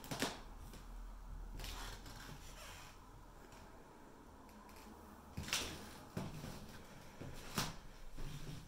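Faint room tone with a few scattered sharp knocks and thumps: one at the very start, then more about five and a half, six and seven and a half seconds in.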